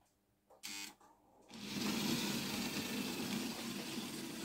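Model electric locomotive's motor and wheels running on metal track: a steady whirring rumble that starts about a second and a half in as the freshly cleaned and reassembled locomotive sets off on a test run.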